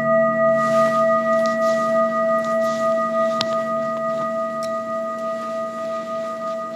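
Large metal singing bowl ringing on after a strike: a steady chord of several tones with a slow wavering beat, slowly fading. A few faint clicks sound over it.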